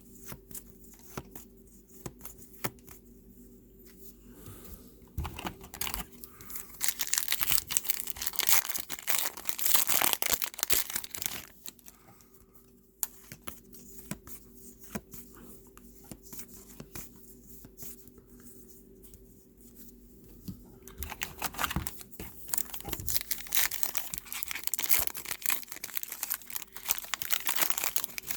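Trading-card pack wrappers being torn open and crinkled, in two spells of several seconds each, with quieter small clicks from cards being handled between them.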